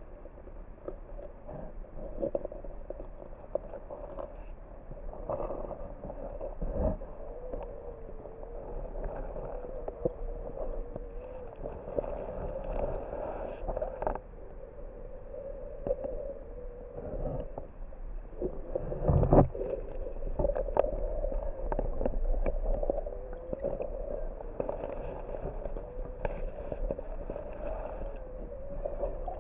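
Muffled underwater river sound: flowing water with scattered knocks and thumps, over a wavering hum.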